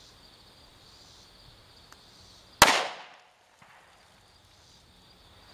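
A single .45 ACP shot from a DoubleTap 45 two-barrel pocket pistol firing a 185-grain Hornady Z-Max round, about two and a half seconds in, with a short echo trailing off. Insects chirp faintly and steadily in the background.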